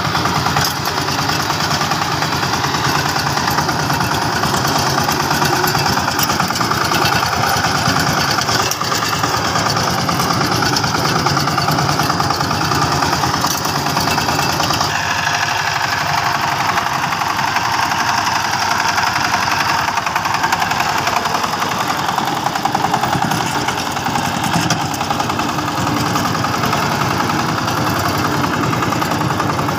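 Two-wheel power tiller's single-cylinder diesel engine running steadily under load as its rotary tiller works the soil.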